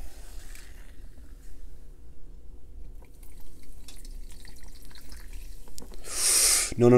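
Diet Dr Pepper poured from a can onto ice in a glass: the liquid splashes and crackles over the cubes and fizzes as the foam rises to the rim. A short loud hiss comes near the end.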